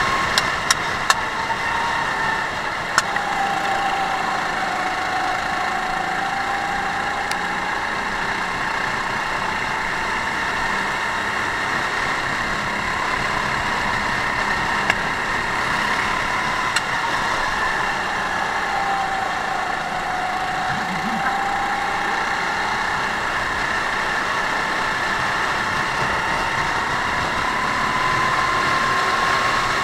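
Racing kart engine heard from on board at race pace, its pitch sinking twice as the kart slows for corners and climbing again on the straights. A few sharp clicks come in the first few seconds and once or twice later.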